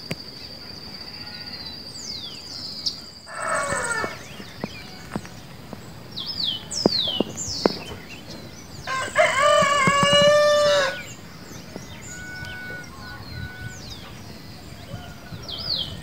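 A rooster crows once for about two seconds past the middle, after a shorter falling call about three seconds in. Small birds chirp in quick falling whistles, and an insect's steady high buzz stops near the start.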